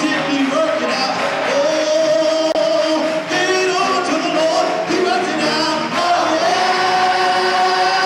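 Hundred-voice gospel mass choir singing, holding a long note near the end.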